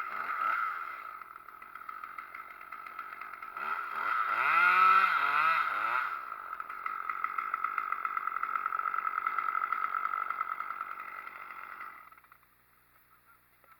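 Gas chainsaw running and cutting, revving up and down near the start and again around four to six seconds in, then shutting off near the end.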